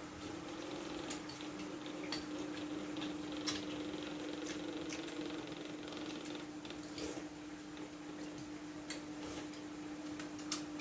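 Spoons clicking and scraping against soup bowls, one of them stainless steel, as two people eat, with scattered sharp clinks, the loudest about three and a half and seven seconds in. A steady low hum runs underneath.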